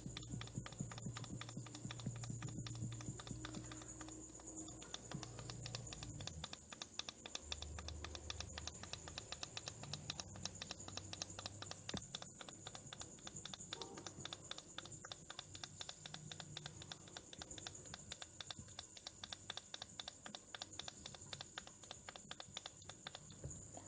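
Small tactile power switch of a Lenovo IdeaCenter Q190 mini PC being pressed over and over in quick succession, giving a fast run of faint clicks. It is being worked after a WD-40 spray to free corrosion on its contacts, which had kept the PC from switching on.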